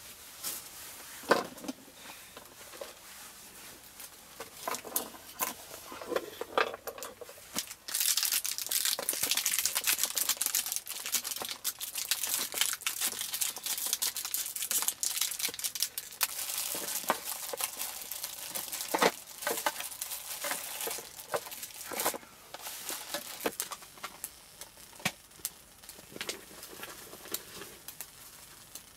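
Crinkling and rustling handling noise with scattered sharp clicks and taps. A loud, dense stretch of crinkling starts abruptly about a quarter of the way in and eases off a little after the middle.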